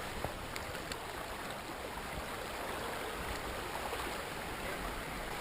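Water sloshing and lapping around a kayak, with scattered small splashes and drips.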